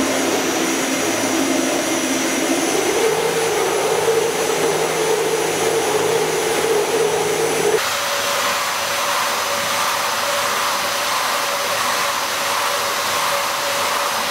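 Electric motors of a log debarking machine running with a steady whir. Its pitch steps up about three seconds in, and about eight seconds in the sound changes abruptly to a different steady whine.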